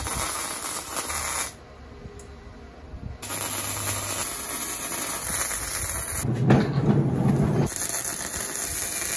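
MIG welder laying tack welds on steel tube, the arc crackling and hissing in bursts that stop and start between tacks, with a pause about a second and a half in. A deeper, louder rush comes about six and a half seconds in.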